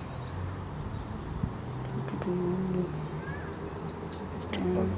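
Small bird cheeping: short, high-pitched cheeps repeated irregularly, about two a second.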